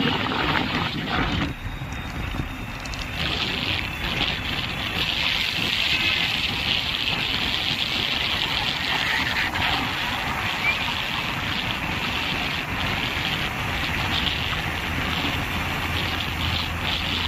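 Steady road and wind noise from a moving vehicle, with wind rushing over the microphone.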